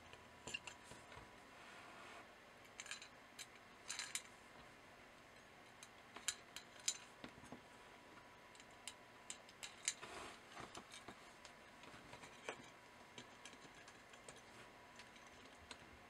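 Faint, scattered small clicks and ticks as through-hole LEDs are pushed into a circuit board and the board is handled.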